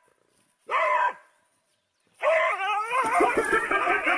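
A dog whining: one short rising-and-falling call about a second in, then a longer wavering call from about halfway through.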